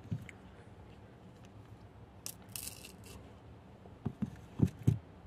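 A person eating a banana: chewing sounds with a short tearing rustle about two seconds in and a few soft low thuds near the end, the last two the loudest.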